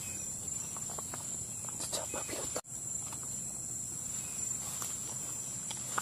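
Footsteps and rustling on soft, muddy forest ground strewn with leaves and low plants, over a steady high-pitched drone of insects. The sound cuts out for an instant about halfway through.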